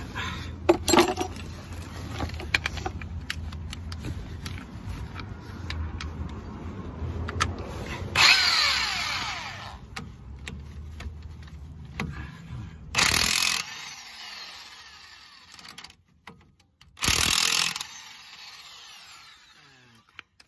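Hand wrench working the bolts of a car's front brake caliper: scattered metal clicks and clinks, with loud rasping bursts about eight seconds in, near thirteen seconds and near seventeen seconds.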